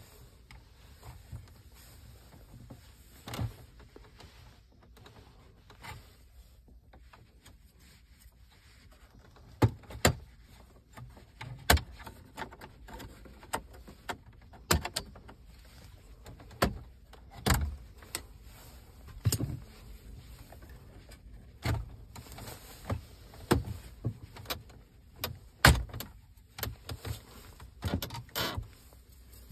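Irregular sharp plastic clicks and knocks as a plastic pry tool levers the dashboard trim surround off around a Volkswagen head unit, with the trim's clips snapping loose. The clicks are sparse at first and come thick and loud from about ten seconds in.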